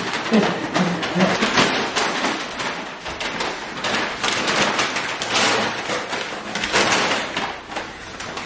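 Paper grocery bags crinkling and rustling as they are swung and handled, with many quick sharp crackles and a few knocks.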